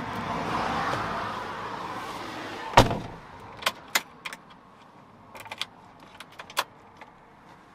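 A steady rushing noise that drops away as a vehicle door slams shut about three seconds in, followed by a few light clicks and rattles.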